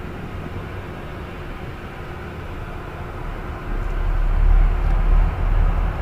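A low, rumbling drone with a faint steady hum, the kind of 'strange sound' said to bring chest-felt vibration. About four seconds in it swells much louder and deeper.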